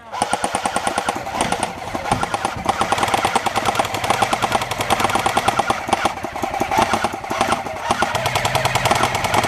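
Several airsoft guns firing on full auto in a rapid, continuous clatter of overlapping shots.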